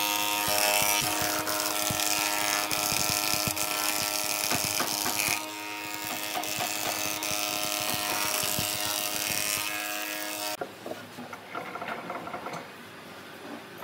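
Industrial thickness planer running with a steady pitched hum, planing a pine board with a heavier cutting noise for the first five seconds or so, then running on without a board. About ten seconds in the machine sound drops away, leaving faint knocks of wood being handled.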